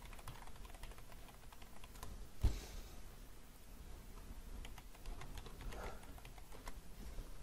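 Computer keyboard typing: faint, scattered keystrokes, with one louder knock about two and a half seconds in.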